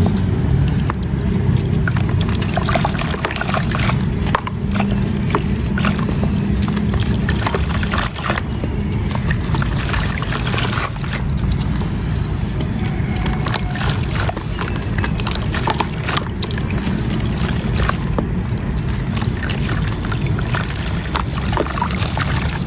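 Wet marble-powder crumbles being crushed and crumbled in water: a continuous run of small gritty crackles and crunches over a steady low watery wash.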